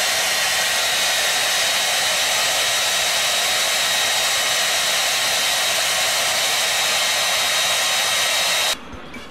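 Handheld hair dryer running steadily: an even rush of blown air with a thin high whine in it. It stops abruptly near the end.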